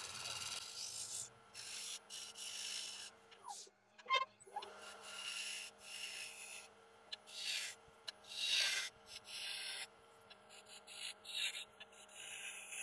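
Steel scraper cutting a spinning sycamore blank on a wood lathe: irregular scraping strokes, some short and some longer, that start and stop as the tool is worked across the wood, over a steady low hum. A sharp click about four seconds in.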